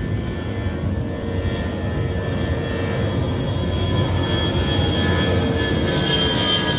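Twin-engine jet airliner climbing out after takeoff, its engines at climb thrust making a steady rumble with a high whine, growing gradually louder as it comes nearer overhead. The whine drops slightly in pitch near the end.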